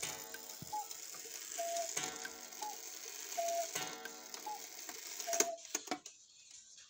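Soviet 'Mayak' cuckoo clock calling the hour: three times a strike of the gong rings out, each followed by the two-note cuckoo call, high then lower. A few sharp clicks of the mechanism come near the end as the bird goes back in.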